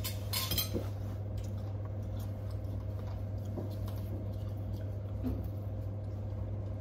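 Cutlery clinking against plates during a meal: a few sharp clinks in the first second, then lighter scattered taps, over a steady low hum.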